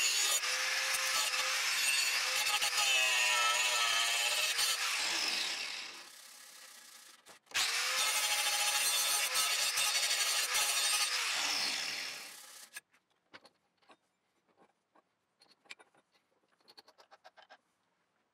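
Electric angle grinder grinding rust off the steel blade of an old woodworking tool. It is switched off and winds down about five seconds in, starts again a couple of seconds later, grinds on, and winds down again past the middle. After that, only faint light clicks.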